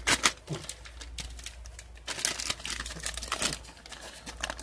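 Thin black plastic blind bag from a Funko Mystery Mini crinkling as fingers handle it, in irregular bursts.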